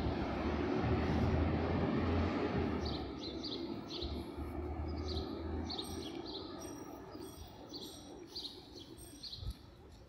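Small birds chirping in the boulevard trees, a run of short high calls several times a second from about three seconds in, over a steady hum of city traffic that fades away toward the end.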